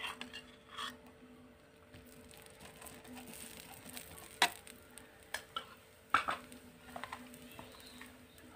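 Steel spoon clinking now and then against a china bowl and the tawa as oil is put onto a cooking dosa: a few sharp clicks, the loudest about four and a half and six seconds in, over a faint steady hum.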